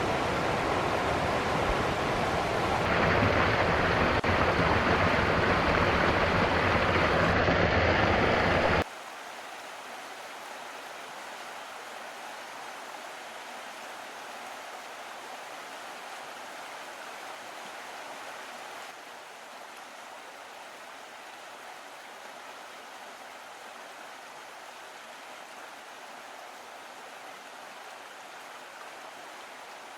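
Rushing water of waterfalls, a steady noise with no pitch to it. It grows louder about three seconds in, drops sharply to a much quieter rush about nine seconds in, and dips slightly again near nineteen seconds, as one clip gives way to the next.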